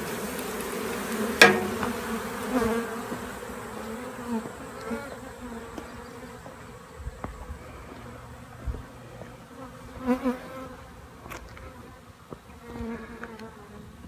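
Honey bees from a disturbed swarm buzzing in flight, single bees swelling louder as they pass close and fading again. One sharp knock about a second and a half in.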